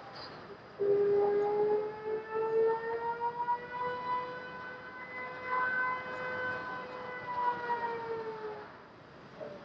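A siren wailing: one long tone that starts about a second in, climbs slowly in pitch, holds, then sinks away near the end.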